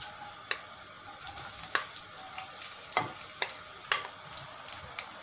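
Sliced red onions dropping into hot oil in a wok and sizzling, with several sharp knocks from the wooden spatula pushing them off a glass plate.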